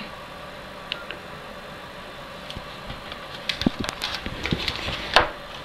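A mobile phone being handled while its camera is used: a run of small clicks and knocks from fingers and keys, with one sharper click about five seconds in, over a steady low hum.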